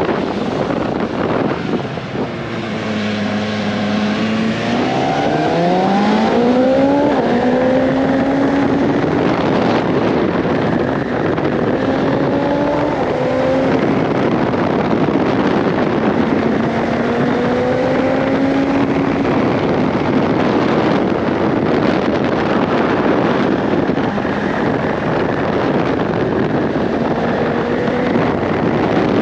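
BMW S1000XR's inline-four engine on the move, holding low revs, then accelerating with a steep rise in pitch about five seconds in, followed by several more rises in revs. Heavy wind rushes over the microphone throughout.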